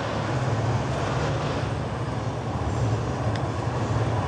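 Steady machine hum with a low drone, from a grout pump running as mortar is pushed through a brass injection nozzle into a rebar splice coupler sleeve. A faint click comes about three and a half seconds in.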